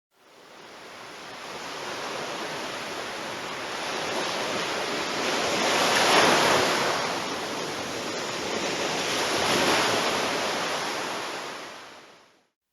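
Ocean waves washing in, fading in gradually, swelling twice and then fading out.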